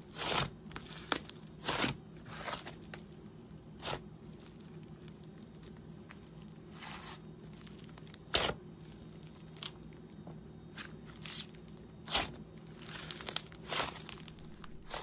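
Slime being worked by hand, giving irregular short crackling, tearing sounds, about a dozen over the stretch, with a steady low hum underneath.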